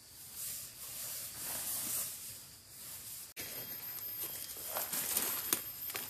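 A large fabric sheet is swished and shaken out over a tent, rustling in swells. About three seconds in it gives way to footsteps and rustling through forest undergrowth, with sharp crackles of twigs and dry leaves.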